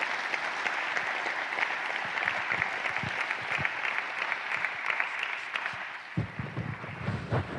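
Audience applauding: a steady patter of many hands clapping that thins and dies away about six seconds in. A few dull low thumps follow near the end.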